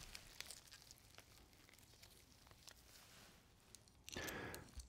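Near silence with faint, scattered small clicks and rustles of gloved hands and a metal instrument handling a prop pouch, and a short soft noise about four seconds in.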